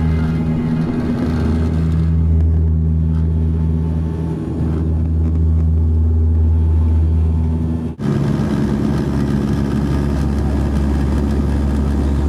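Steady low drone of a running vehicle engine, with an abrupt cut about eight seconds in, after which a similar drone carries on.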